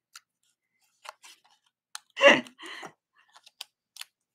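Hands handling craft supplies: a stamp, a cleaning cloth and a sheet of foam adhesive dots, making scattered light clicks and rubs. There is one short, louder handling noise a little over two seconds in.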